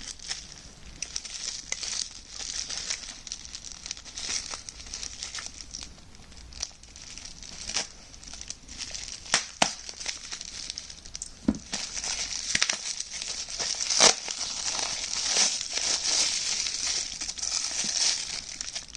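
Packing tape being pulled and torn and plastic wrapping crinkling as a heavily taped item is unwrapped by hand. There is a continuous rustle with scattered crackles and a couple of sharper clicks partway through.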